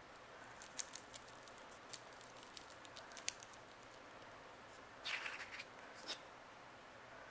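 Faint scattered clicks and ticks of a metal probe working at the fangs of a dead wolf spider on paper, with a short scratchy rustle about five seconds in, over a steady low hiss.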